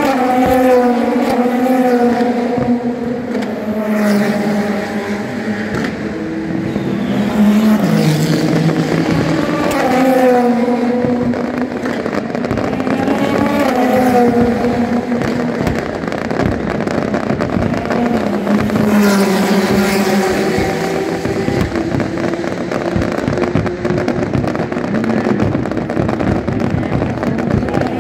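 Endurance race cars passing one after another at speed, each engine note swelling and then falling away in pitch as it goes by, several times over. Fireworks crackle and pop under the engines throughout.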